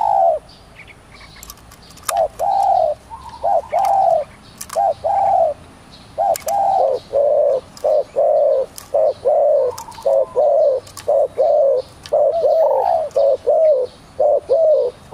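Spotted dove cooing: a long run of short, repeated coos that starts about two seconds in and keeps going at roughly two a second, with faint high chirps behind it.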